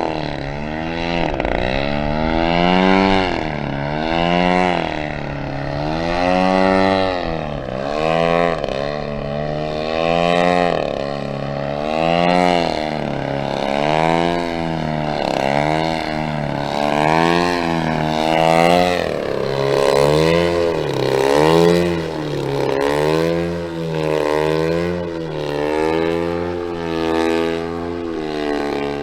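Giant-scale RC aerobatic plane's 120cc DA twin-cylinder two-stroke gasoline engine and propeller at high power, the pitch swinging up and down every second or two as the throttle and the plane's passes change.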